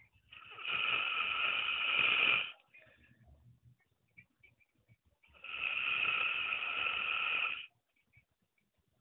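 A sleeping man snoring: two long snores of about two seconds each, some five seconds apart.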